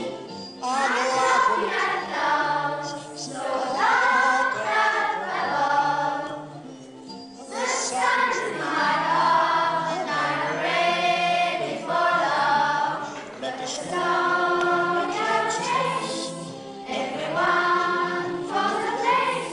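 A class of children singing a song together in unison, in phrases with short pauses between them.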